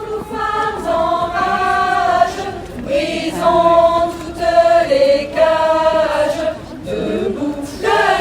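A women's choir of dozens of voices singing together in unison, held notes in slow phrases, sung in the open air.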